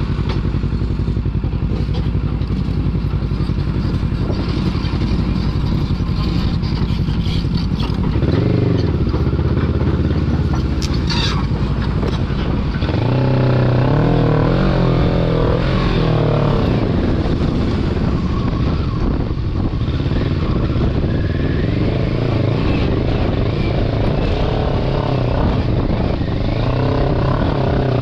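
Kawasaki Versys 650 parallel-twin engine running at low speed on a rough dirt track. The revs rise and fall about eight seconds in and again from about thirteen to seventeen seconds. There is a short clatter about eleven seconds in.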